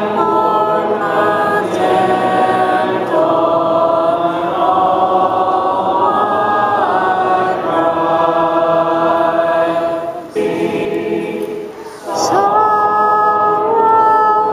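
Church congregation singing a hymn a cappella, many voices holding long notes together, with a short break about ten seconds in before the next line begins.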